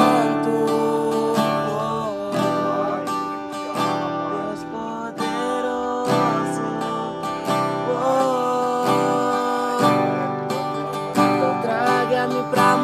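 Strinberg acoustic guitar strummed in a steady rhythm of chords, with a man's voice singing along in short phrases at times.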